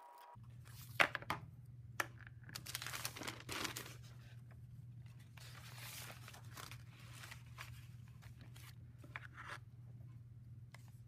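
Newspaper and sketchbook paper rustling and crinkling as the sheets are lifted and turned, in a few long rustles, with several sharp knocks. A steady low hum runs underneath.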